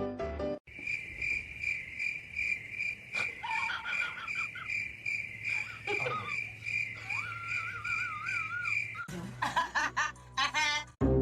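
A steady, high, pulsing insect trill like a cricket's, about five pulses a second, with a few short wavering tones over it. It stops about nine seconds in, where a busier stretch of music or voices takes over.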